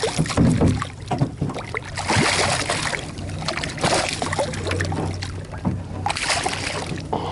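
A hooked bass thrashing and splashing at the water's surface beside a boat as it is landed by hand, in several separate bursts of splashing a second or two apart.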